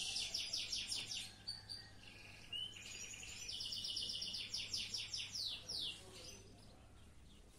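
Domestic canary singing: two long phrases of fast, high trills of rapidly repeated notes, with a short pause of scattered chirps between them. The song stops about six seconds in.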